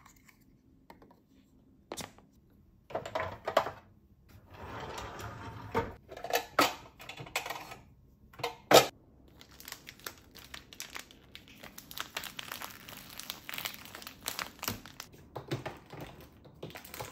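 Household handling sounds: scattered clicks and knocks of containers and lids, the loudest a sharp knock nearly nine seconds in, then a steady rustle of plastic as a crammed plastic container is pushed into a full fridge shelf.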